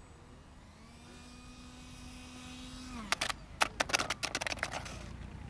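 Electric ducted fan of a small foam RC jet whining, growing louder, then winding down about three seconds in as the power is cut. A burst of sharp knocks and rattles follows.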